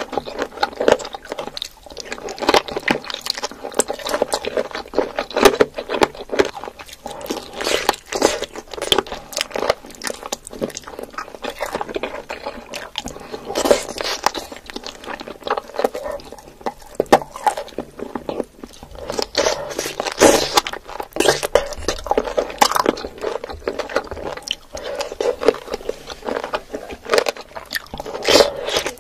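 Close-miked eating of spicy sauce-coated chicken feet: bites, chewing and wet mouth smacking, going on irregularly throughout with small crunches of cartilage.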